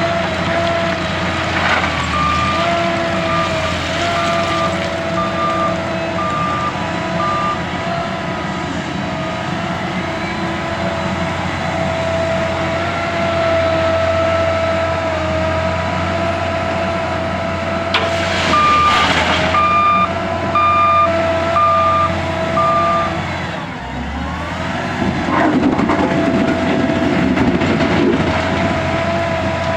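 Diesel engine of an L&T 9020 wheel loader running under load, its pitch rising and falling as it works. The reversing alarm beeps about once a second in two spells, from about 2 to 8 seconds in and again from about 18 to 23 seconds in. Short clattering bursts come through, the loudest at about 18 seconds.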